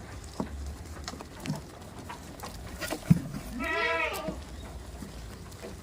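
A goat bleats once, a single call that rises and falls in pitch about halfway through. A sharp knock comes just before it, with scattered small clicks around.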